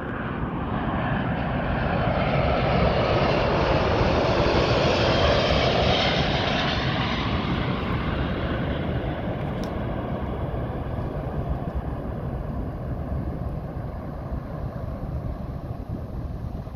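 Lockheed L-1011 TriStar's three Rolls-Royce RB211 turbofan engines on a low approach pass. The jet noise builds to its loudest a few seconds in and then slowly fades as the airliner flies away down the runway.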